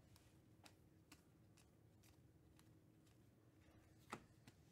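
Near silence with faint clicks of trading cards being flipped through by hand, about two a second at first, then a pause and one louder click near the end.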